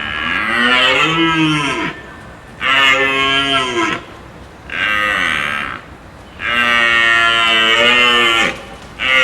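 Cow mooing: four drawn-out calls of one to two seconds each, the pitch bending as each call goes, and a short fifth call near the end.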